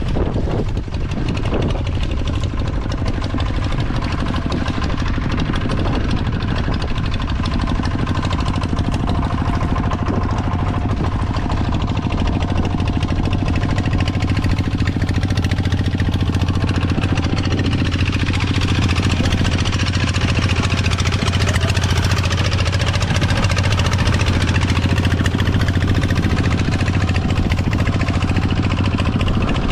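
A small engine running steadily, a little louder in the second half.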